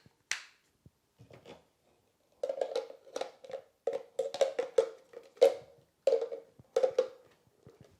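Plastic knocks and clicks as the handheld vacuum's washable filters and plastic dust container are handled and fitted back together. There is a quick run of a dozen or so sharp taps from about two and a half seconds to seven seconds in, several with a short hollow ring.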